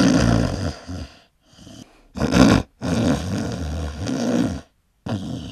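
A person snoring: several long, rough snores with short silent pauses between them.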